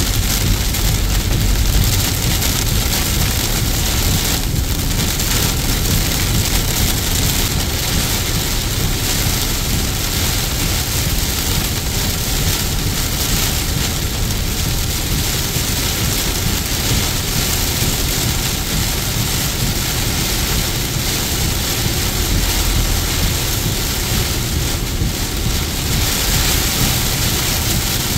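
Heavy rain falling on a car's windshield and roof, heard from inside the moving car, with steady road and tyre noise underneath.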